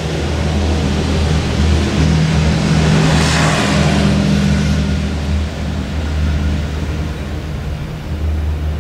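Steady low hum of an idling car, with a rushing noise that swells and fades about three to four seconds in.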